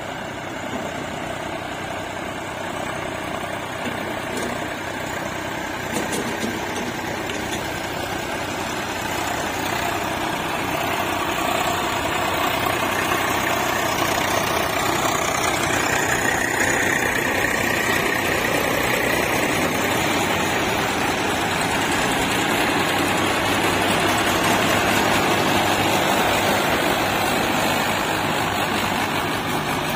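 Tractor diesel engine running steadily, growing louder toward the middle and easing slightly near the end.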